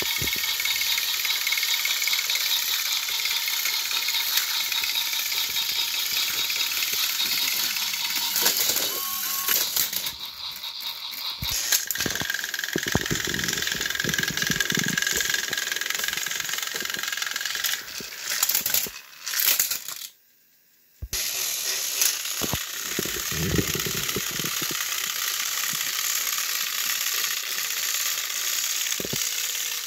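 Battery-powered plastic toy train engines pushing against each other on the track, their small motors and gears whirring and rattling steadily. The sound breaks off briefly a few times, dropping to near silence for about a second around twenty seconds in.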